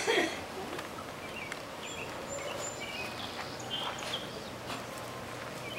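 Short, scattered bird chirps over a quiet open-air background, with a single knock at the very start.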